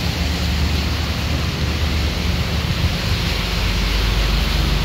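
Vehicles driving through floodwater on a street: a steady rush of water churned and splashed by the wheels over a heavy low rumble, with no single event standing out.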